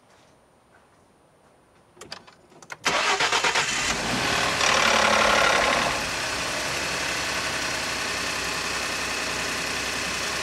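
Ford F-150's 3.5-litre EcoBoost twin-turbo V6 cold-starting: a few clicks, then the engine cranks and catches about three seconds in, runs loud and high for about three seconds with the timing chain rattle, and settles to a steady idle. The rattle is still there even though the timing chain has been replaced under TSB-14-0194.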